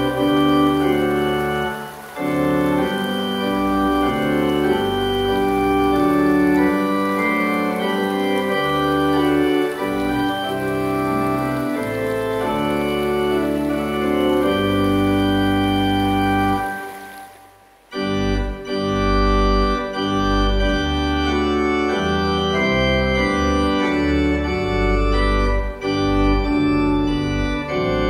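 Organ playing a hymn tune in held chords, with a short break about two-thirds of the way through as one verse ends and the next begins.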